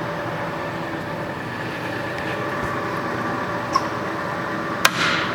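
MSC-Vectrax 13" engine lathe running under power with its cross feed engaged, a steady mechanical hum and whine of its spindle and feed gearing. Two sharp clicks come near the end, the second the louder.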